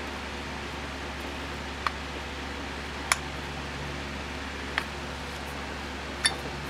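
Four short, sharp clicks or light knocks spaced a second or more apart, over a steady low hum and fan-like hiss.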